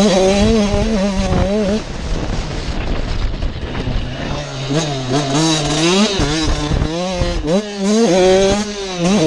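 2019 Husqvarna TC85's 85cc two-stroke engine being ridden hard, its pitch climbing and dropping again and again with the throttle, over a steady hiss.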